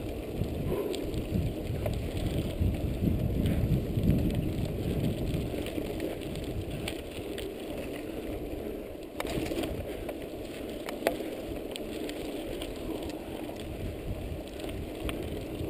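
Mountain bike riding along a dry dirt track: tyres rolling and crackling over the dirt with a steady low rumble, scattered small ticks and rattles, and one sharper click about two-thirds of the way through.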